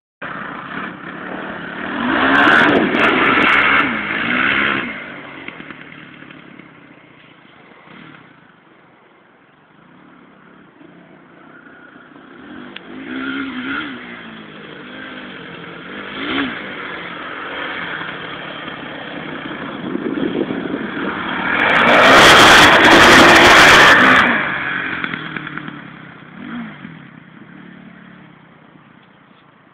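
Honda 400 ATV engine revving up and down in spells, louder and fainter by turns. A loud rushing noise swells for about two seconds about three quarters of the way through.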